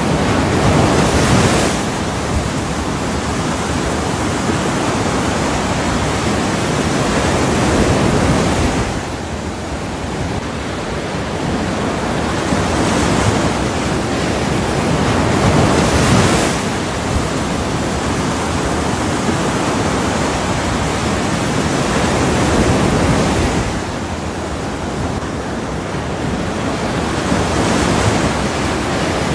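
Ocean surf: waves breaking and washing in a continuous hiss that swells and eases in a slow cycle about every seven seconds.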